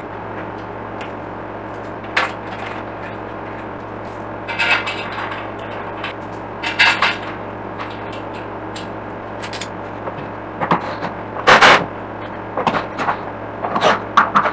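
Scattered knocks and clatters of tools and items being picked up and set down on a wooden table top, the loudest a longer clatter about two-thirds of the way through, over a steady low hum.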